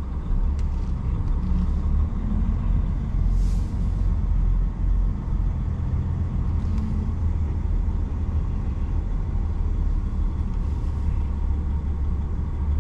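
Truck engine running slowly under the cab as the tractor-trailer creeps through a turn, a steady low rumble. A few faint short hisses come about three and a half, seven and eleven seconds in.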